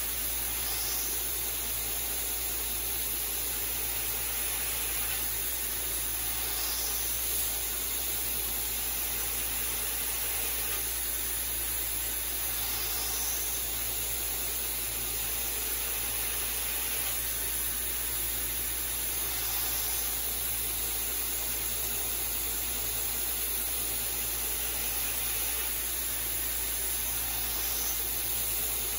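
Belt grinder running with a steady hiss as a 52100 steel knife blade is held against the belt and ground to a convex bevel to thin it, with faint changes in the hiss about every six seconds as the blade is worked.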